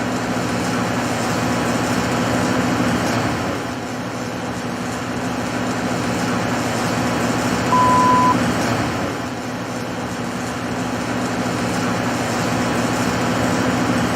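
Rotoweld 3.0 automated pipe spool welding machine running, a steady hum and hiss that swells and eases every few seconds. One short high beep sounds about eight seconds in.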